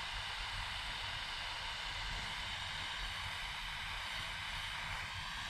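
Steady, even hiss with a low rumble underneath, unchanging throughout.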